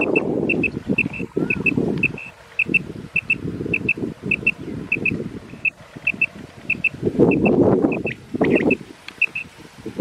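A quail caller sounding short, high double notes over and over, about two pairs a second, calling to lure wild quail toward the net. Under it runs a low rushing noise that swells loudest at about seven to eight and a half seconds.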